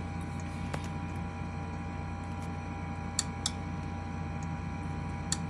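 Air conditioning unit running steadily, a constant low hum with a steady tone above it, and a few faint clicks.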